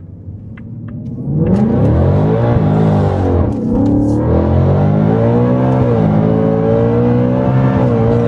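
Whipple-supercharged V8 of a Shelby Super Snake Mustang pulling hard at full throttle from about a second in. The engine note climbs, drops at an upshift, and climbs again, twice over.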